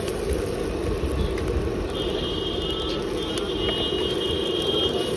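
Steady roadside traffic noise with a low rumble. A high-pitched tone sounds twice in the second half, once briefly and then longer.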